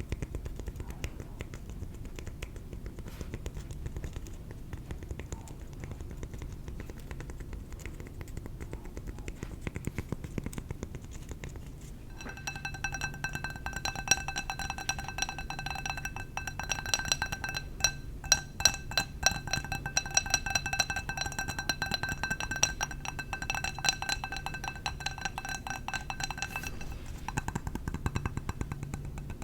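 Rapid light tapping on cork, soft dull clicks. About twelve seconds in, the tapping moves to a glass candle jar: quick taps with the glass ringing a clear, steady tone over them that fades near the end.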